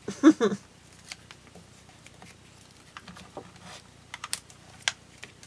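Scattered light taps and clicks of paper and craft supplies being handled on a desk, at irregular intervals.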